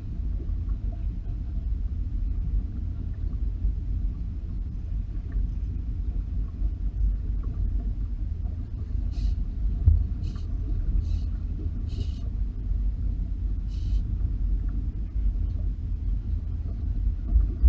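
Steady low rumble of wind buffeting the microphone on a small boat at sea, with five short hissing bursts in the middle.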